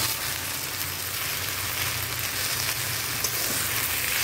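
Food sizzling in a steel wok as jute leaves and boiled split peas are stirred with a metal spatula: a steady frying hiss with a few light scrapes of the spatula on the pan.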